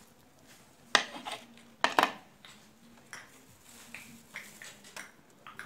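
Metal cookware clinking and knocking: two sharp clinks about one and two seconds in, then fainter taps.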